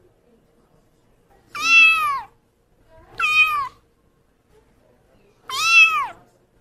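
A kitten meowing three times: short, high-pitched meows, each just over half a second long, rising slightly and then falling away at the end.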